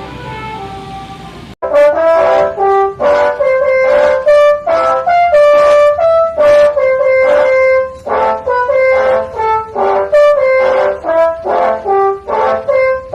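Bus telolet horn, a set of multi-tone air horns, playing a fast melody of short notes that jump in pitch. It starts abruptly about a second and a half in, after a quieter stretch of noise with a few held tones.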